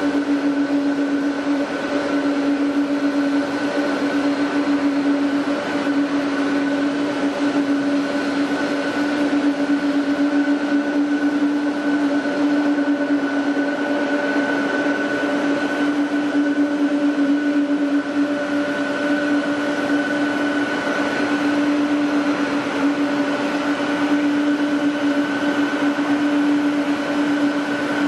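Jet airliner engines running at a steady idle: a constant whine made of a few fixed tones over a rushing noise, with no change in pitch or level.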